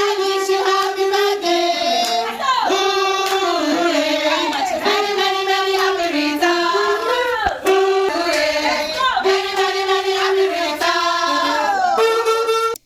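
Children singing a song together, held notes joined by short slides in pitch; it cuts off abruptly near the end.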